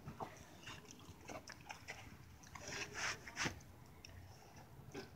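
A dog chewing and biting at sweets on the concrete: faint scattered clicks and smacks, with a few louder bursts about three seconds in.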